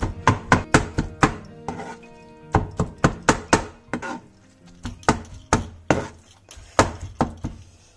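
A large kitchen knife chopping soft baked eggplant on a white cutting board: quick repeated strokes, about four a second, coming in runs with short pauses between them. Soft background music plays underneath.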